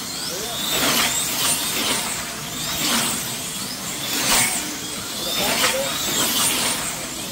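Slot cars racing round a large banked multi-lane track. The cars pass again and again, about once a second, each pass a short swell of motor whine whose pitch bends as it goes by.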